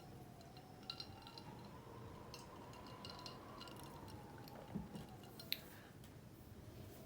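A few faint clinks and taps, like tableware or utensils, over a quiet room with a faint steady hum.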